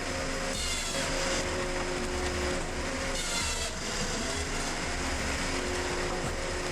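Heavy wood-processing machinery running with a steady engine hum, with a higher-pitched noisy rasp breaking in twice.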